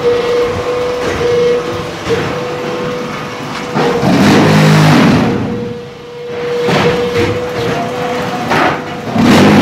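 KM-15 automatic concrete block-making machine running: a steady high hum, a loud buzzing burst about four seconds in lasting about a second, and several sharp metal clanks in the second half.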